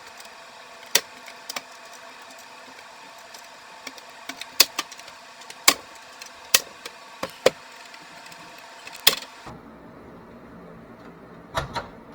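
Plastic snap clips of an Xbox One S case clicking loose as the shell is pried open around its edge: sharp clicks about every second, over a steady faint hum that stops abruptly near the end.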